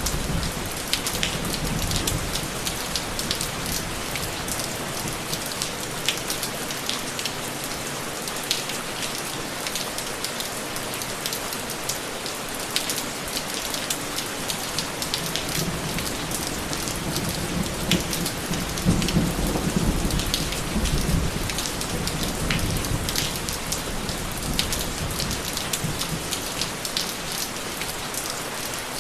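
Steady rain falling, with many separate drop strikes heard close by. Low thunder rumbles roll in at the start and again about two-thirds of the way through, swelling briefly.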